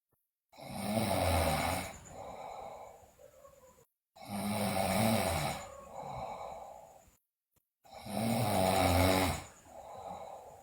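A girl snoring loudly in her sleep: three loud, low snores about three and a half seconds apart, each followed by a softer, shorter breath sound.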